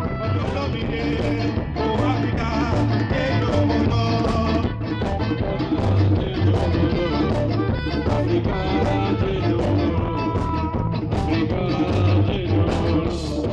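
A live reggae band playing, with a heavy bass line and a steady drum beat.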